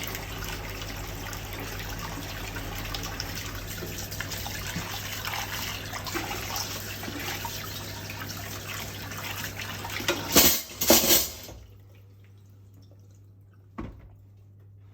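Kitchen tap running water into a sink during dishwashing, with two loud splashy bursts near the end before the water cuts off suddenly. Afterwards there is a single sharp knock.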